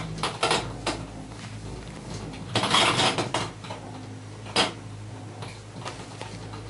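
Gondola cabin riding along its cable, heard from inside: a steady low hum with scattered metallic clicks and rattles, and a longer clattering rush about three seconds in.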